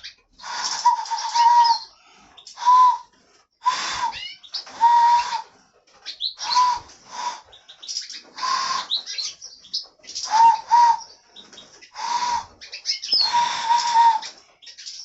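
Hand whistle: a person blowing into cupped hands, giving a breathy, hollow hoot near one pitch. About a dozen short notes come at uneven intervals, some held a little longer or broken into two quick hoots, with a bird-like quality.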